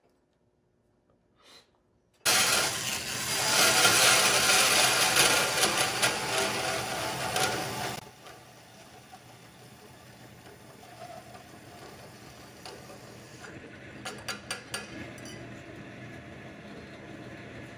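Vertical bandsaw cutting a thin-wall stainless steel exhaust bend: a loud, noisy cut starts suddenly a couple of seconds in and stops abruptly about eight seconds in, after which the saw runs on much more quietly, with a few light clicks near the end.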